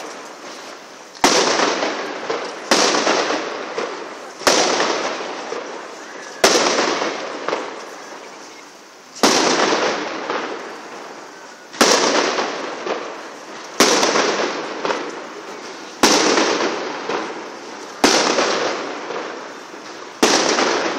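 Fireworks going off: about ten sharp bangs, one roughly every two seconds, each trailing into a noisy tail that fades over a second or two.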